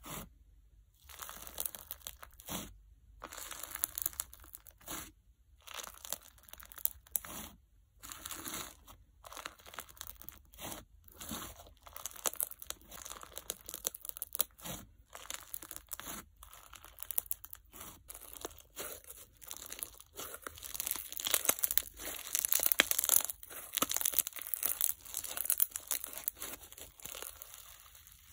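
Crunch slime full of bingsu beads and microbeads being pressed and kneaded by hand, giving a dense crackling and popping of the beads, loudest about three-quarters through, with short pauses between presses.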